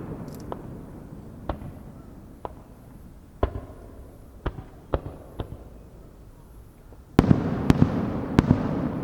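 Fireworks bursting: a run of single sharp cracks about a second apart. About seven seconds in comes a sudden loud boom, then several quick cracks over a fading rumble.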